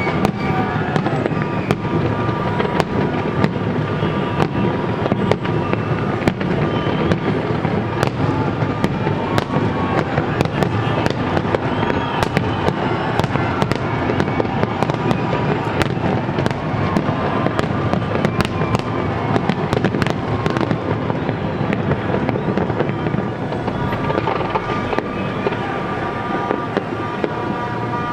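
Fireworks display: a dense, unbroken barrage of bangs and crackles, with people's voices underneath.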